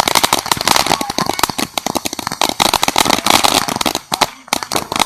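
Ground firework crackling: a dense run of sharp pops and cracks in quick succession, with a brief lull about four seconds in.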